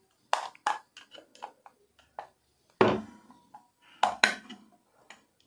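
Screwdriver prying at the plastic locking tabs on the hub of a BLDC ceiling fan's aluminium motor housing: a series of sharp clicks and lighter ticks, the loudest about three seconds in and two more near four seconds.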